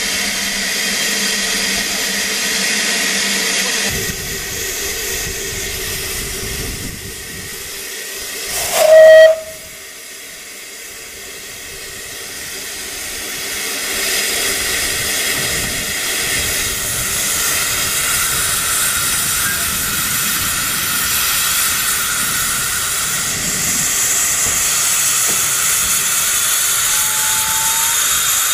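Narrow-gauge steam tank locomotive No. 190 'Lyd' hissing steam steadily, with one short, loud blast of its steam whistle about nine seconds in. The hiss grows louder in the second half as steam blows from the cylinders.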